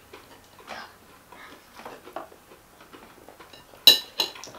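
Forks clinking and scraping on plates during a meal, with two sharp clinks close together near the end.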